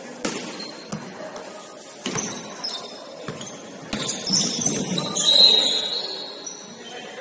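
A basketball bouncing on a gym floor during play in irregular thuds, with high squeaks and voices; the loudest stretch comes about five seconds in.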